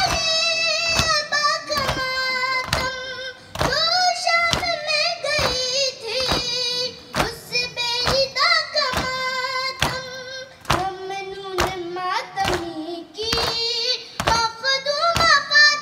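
A boy chanting a noha, an Urdu mourning lament, into a microphone in long sung lines, over a steady rhythm of sharp slaps from mourners beating their chests (matam).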